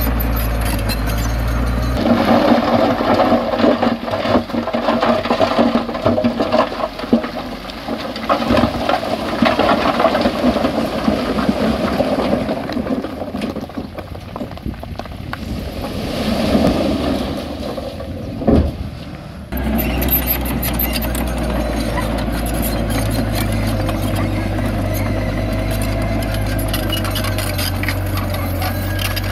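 Diesel engines of heavy earthmoving machinery running. A steady engine note at the start gives way to a long stretch of clanking and rattling, and the steady engine note returns about two-thirds of the way through.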